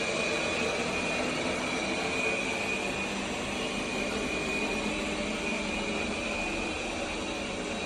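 Roborock S8 Pro Ultra robot vacuum and mop system running: a steady machine noise with a constant high-pitched whine.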